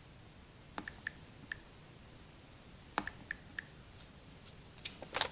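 Calculator keys being pressed: a few sharp clicks with short, high beeps, in two quick runs about a second in and about three seconds in, then a louder knock near the end.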